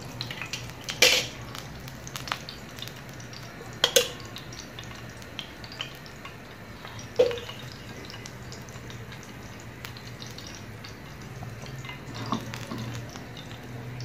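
Thick kadhi of yogurt and gram flour boiling in an aluminium pot, with occasional sharp bubble pops over a soft hiss and a steady low hum.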